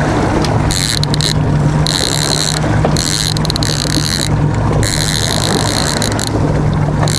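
Twin Yamaha 150 outboard motors running steadily at trolling speed, a constant low hum under the wash of the wake. A high hiss of wind on the microphone cuts in and out several times.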